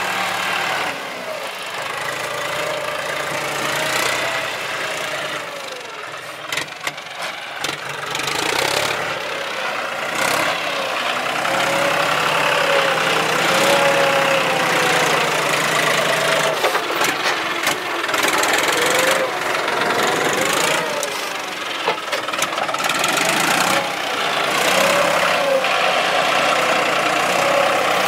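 John Deere 5055E tractor's diesel engine running under load while its front blade pushes soil, the engine note rising and falling repeatedly, with a few short knocks mixed in.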